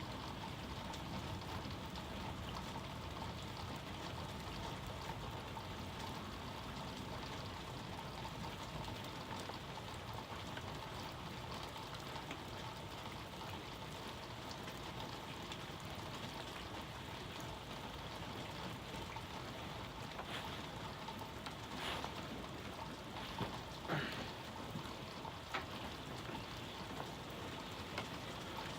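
Steady rain falling, with a few sharper drops or drips striking close by near the end.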